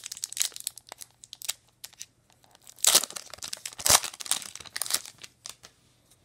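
Foil wrapper of an Upper Deck Trilogy hockey card pack crinkling and being torn open by hand, with many small crackles and two louder rips about three and four seconds in.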